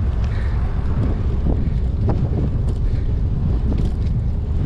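Headwind buffeting the microphone of a bicycle-mounted camera while riding, a steady low rumble.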